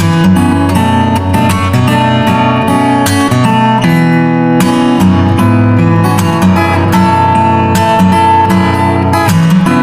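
Music played on acoustic guitar, plucked and strummed at an even level, with a held melody note above it.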